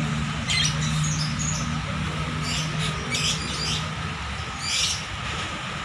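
Caged contest birds chirping in short, high bursts, four or five times, over a steady low hum.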